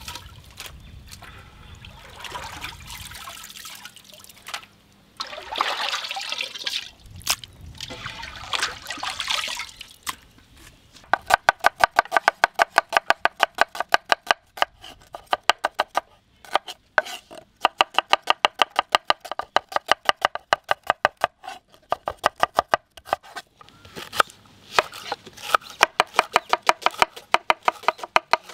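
Water splashing and trickling as the fish is washed. Partway through, rapid, steady chopping starts: a knife strikes through trevally flesh onto a cutting board several times a second, and each stroke rings briefly.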